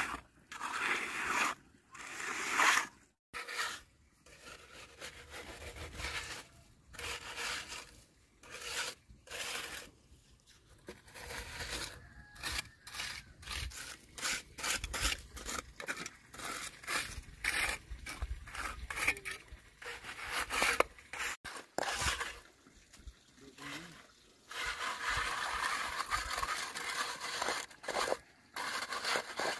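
Irregular scraping and rubbing strokes of hand work on a rough surface, some quick and some drawn out, with short pauses between; they run together densely near the end.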